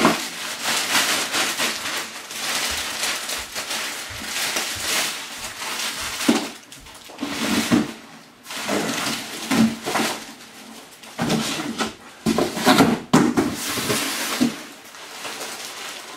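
Clear plastic wrapping rustling and crinkling in irregular bursts as it is handled and pulled off packed parts, with a few knocks about three-quarters of the way through.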